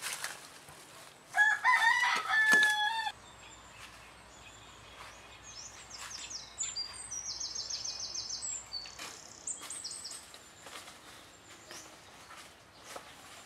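A rooster crowing once, the loudest sound, cut off abruptly about three seconds in. After it, a small bird's high, rapid chirping trill, with scattered soft rustles and clicks among leafy vines.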